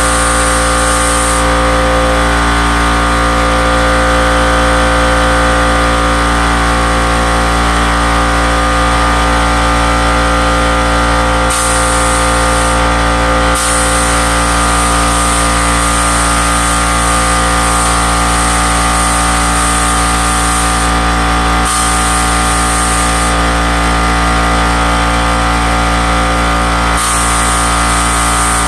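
DeVilbiss StartingLine HVLP spray gun spraying paint. Its air hisses in passes: it stops about a second in and comes back in several stretches through the second half, with a small click at some of the changes. Under it runs a steady mechanical hum, the air compressor feeding the gun.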